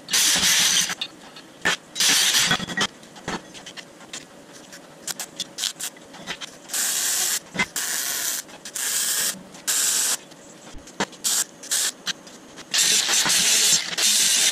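MIG welder laying short tack welds: several bursts of crackling arc hiss, each under a second, with clicks and taps of steel parts being handled between them. Near the end an angle grinder takes over with a longer, steady hiss of grinding on steel.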